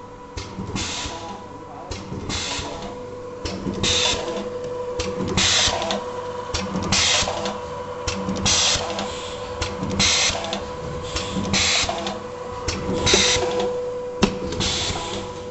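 ZY-101R-C automatic plastic zipper gapping machine running through its cycle, a short burst of hiss about every one and a half seconds as the die works, over a steady hum.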